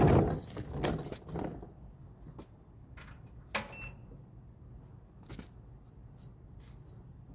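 A brief rush of compressed air fed into the generator setup, fading away over about a second and a half, followed by a few light clicks and a small metallic clink.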